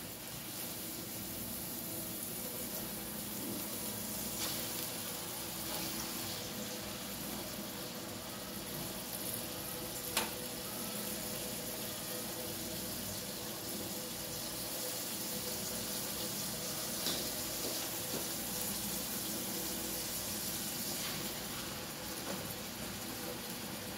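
Liver frying in oil in an aluminium pot: a steady sizzle, with a few sharp clicks of the spatula against the pot, the loudest about ten seconds in.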